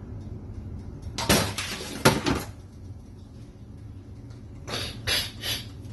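Kitchen utensils and containers knocking and clinking as they are handled: a couple of short clatters about one and two seconds in, then a quick run of clinks near the end.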